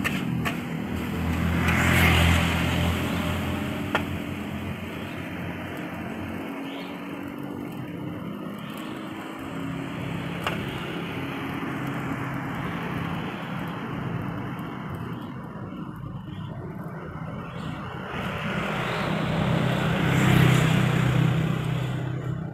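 Passing road traffic: motor vehicles going by over a steady hiss of street noise, loudest about two seconds in and again near the end. A few sharp metal clicks in the first seconds, from a spatula against the wok.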